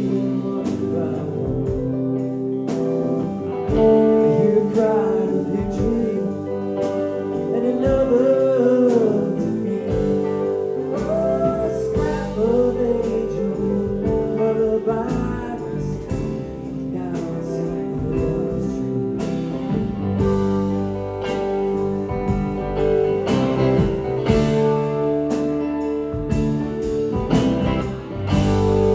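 Live band playing, with guitar over the band and a bending melodic lead line.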